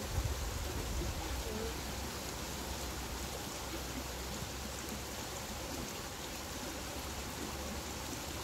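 Steady background hiss with a low rumble that fades out about halfway through, and a small knock just after the start.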